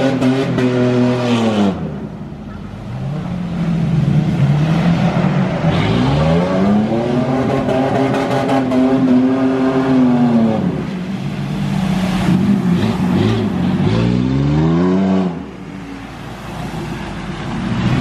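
Truck engine revving hard in repeated surges. Its pitch climbs, holds high for several seconds, then drops away, and it rises again twice more, the last surge starting near the end.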